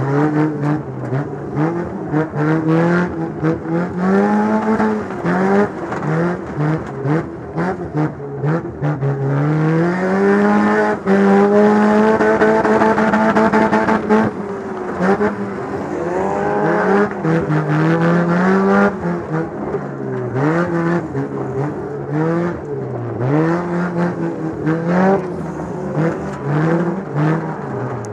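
Demolition derby car's engine revving up and down again and again, held at high revs for a few seconds near the middle, with short sharp knocks and bangs throughout.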